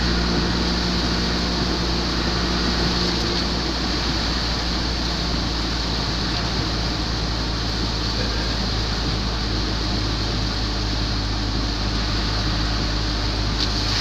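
Vehicle driving through heavy rain on a wet road: steady rain and tyre hiss over a low engine drone, with the engine's pitch shifting a few seconds in.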